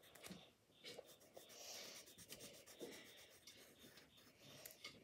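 Faint scratching of a pencil on paper, in short, irregular strokes as small shapes are coloured in.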